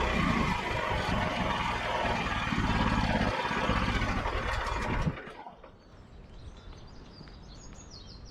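Engine of a Frontier OS27 portable bandsaw mill running loudly and steadily, cutting off abruptly about five seconds in.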